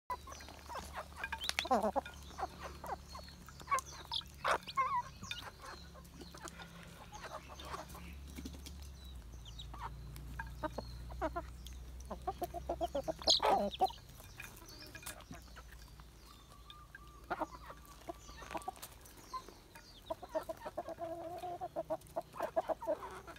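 Hens and roosters clucking in short calls around a dish of chicks, with many short sharp taps mixed in as beaks peck at the dish; a quick run of clucks comes near the end.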